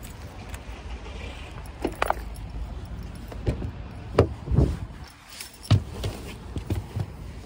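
Handling noise of a phone carried against a padded jacket: rubbing and a scatter of short knocks over a steady low rumble.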